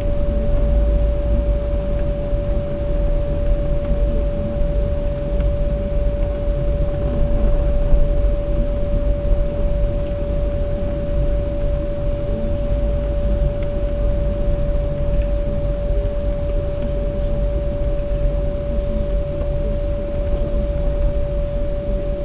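Low, steady rumble of a car driving slowly through town streets, heard from inside, with a steady single-pitch whine running under it unchanged.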